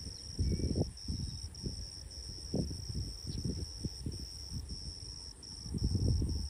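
Insects trilling in a steady high band with short breaks about every half second, over wind buffeting the microphone in irregular low gusts.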